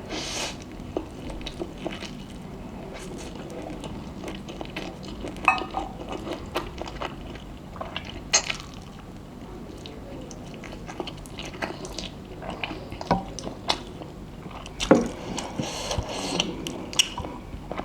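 Close-up eating sounds of spicy instant noodles: wet chewing and biting, with irregular light clicks and clinks of utensils against a dish and a few sharper knocks.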